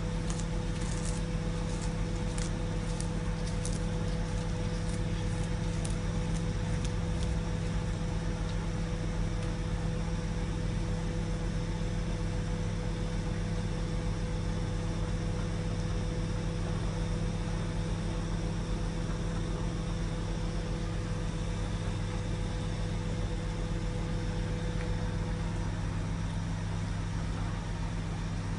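Microwave oven running: a steady low hum with a held tone over it. For the first few seconds there are faint, crisp clicks of a cat crunching a lettuce leaf.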